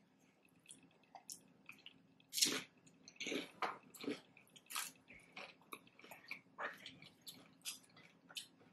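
Chewing chicken nachos close to the microphone: a bite at about two and a half seconds, then a run of irregular, short, crunchy chewing sounds from the tortilla chips.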